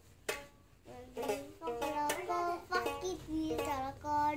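A young boy singing a tune in a series of short held notes, pausing briefly near the start.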